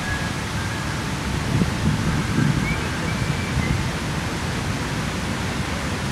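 Steady outdoor background hiss with a low rumble that swells about two seconds in, and a few faint short high chirps.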